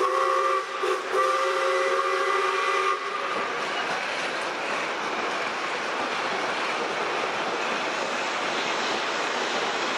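Steam locomotive whistle sounding several notes at once: a short blast, then a longer one of about two seconds. After it comes the steady noise of passenger carriages rolling past on the track.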